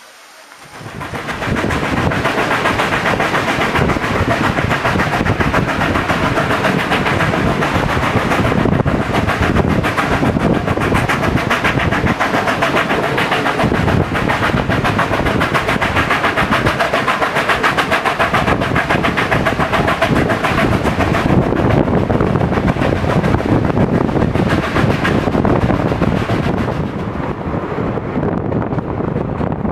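Steam-hauled passenger train running, heard from an open coach window: a loud, steady rush with fast wheel-on-rail clatter. It cuts in suddenly about a second in.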